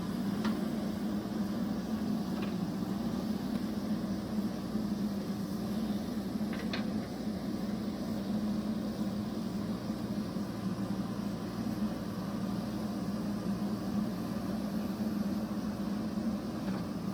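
Diesel engine of a JCB backhoe loader running steadily, with a few faint, brief clinks.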